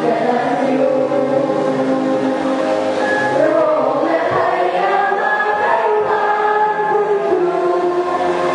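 Student choir singing in harmony, with long held chords that shift together.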